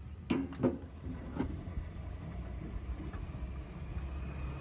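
A tractor being refuelled: a few short knocks in the first second and a half as the fuel pump nozzle goes into the tank filler, over a steady low hum.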